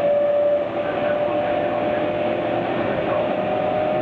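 Keihan 9000-series electric train running, heard from on board: a continuous rumble of the car and wheels with a steady whine.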